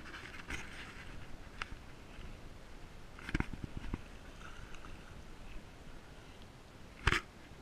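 Shallow estuary water lapping at a sandy shoreline, a low steady wash. A few soft knocks come about halfway through, and one sharp knock near the end.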